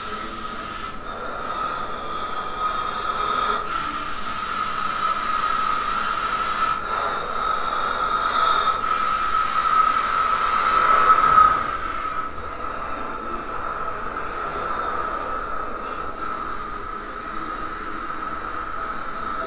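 A siren held on one steady high pitch without a break, swelling to its loudest about eleven seconds in and beginning to slide down in pitch at the very end.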